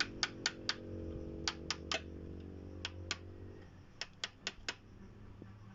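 Sharp clicks in short runs of two to four, about four a second, over a low steady hum that fades out a little past halfway.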